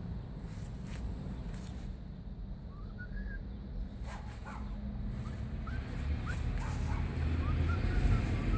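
A series of short, high-pitched rising animal calls, several in a row from a couple of seconds in, over a steady low rumble.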